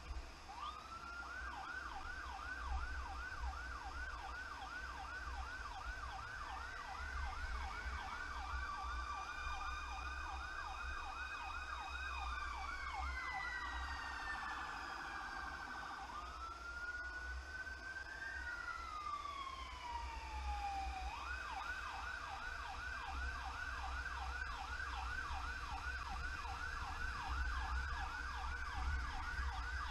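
Emergency vehicle sirens on a response run: an electronic siren in a fast yelp, with a second siren wailing slowly up and down above it. About halfway through, the yelp gives way to a single wail that rises and falls, then the yelp starts again. A low vehicle rumble runs underneath.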